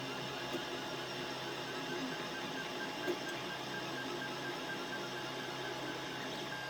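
Creality Ender 5 Plus 3D printer running a print: a steady mechanical hum with several whining tones from its stepper motors and fans, one tone pulsing evenly, and a few small clicks.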